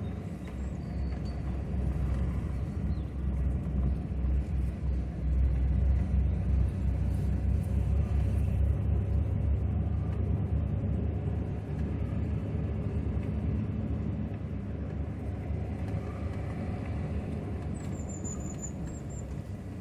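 Steady low rumble of a Chevrolet Silverado pickup driving slowly on a paved road, heard from inside the cab: engine and tyre noise.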